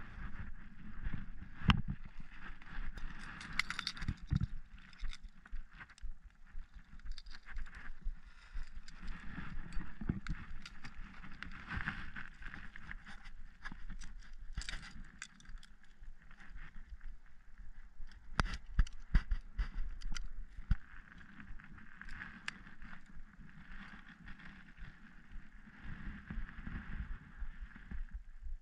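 Close handling noise: rustling and rubbing with scattered sharp clicks and knocks as a caught bass and a handheld digital fish scale are handled right at the camera. The loudest knocks come about 2 seconds in and again around 19 seconds.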